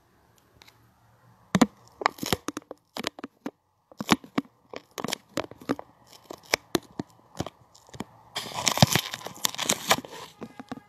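Handling noise from a smartphone being turned around and repositioned: a string of sharp clicks and knocks against the phone, with a stretch of rubbing and rustling on the microphone near the end.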